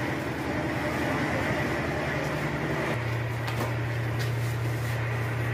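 Steady low machine drone with a constant hum. The hum grows stronger about three seconds in, with a few faint clicks over it.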